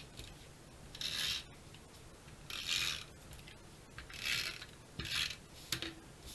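Stampin' Up! Snail adhesive tape runner pressed and drawn across cardstock in four short strokes of about half a second each, laying down strips of adhesive; a sharp click comes near the end.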